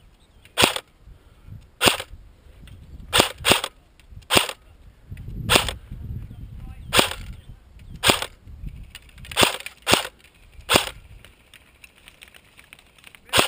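Electric airsoft gun, a CYMA CM.028 AK47, firing single shots: about a dozen sharp cracks at uneven intervals of one to two seconds, with a low rustle of handling between them.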